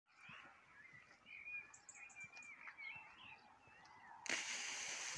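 Faint birdsong of warbling, gliding whistled phrases with a few short high chirps. About four seconds in, a sudden louder hissing noise covers it.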